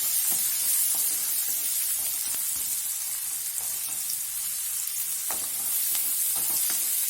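Chopped onion and garlic sizzling steadily in a little hot oil in a pan, with occasional light scrapes and taps of a spoon stirring them.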